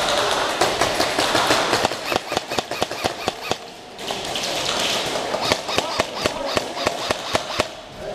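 Airsoft guns firing in an indoor game: rapid, irregular cracks and clicks of shots and BBs striking hard surfaces, thickening into denser bursts near the start and again about halfway through.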